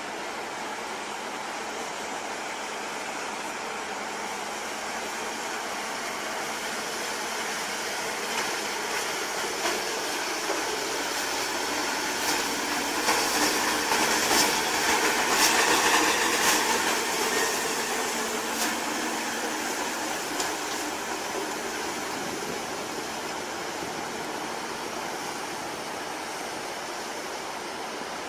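A vehicle passing by: a steady rushing noise builds to a peak about halfway through, with a few knocks and rattles at its loudest, then fades away.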